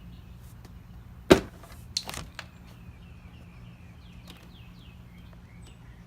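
Hand work on a plastic door armrest and trim: a sharp knock about a second in and a lighter one shortly after, then a run of short falling squeaks as the last armrest screw is turned out.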